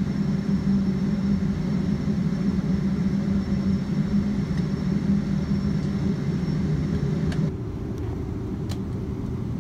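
Steady low rumble of a Boeing 777-200ER heard from inside the passenger cabin, with a faint high whine over it. About seven and a half seconds in, it drops suddenly to a quieter, duller rumble.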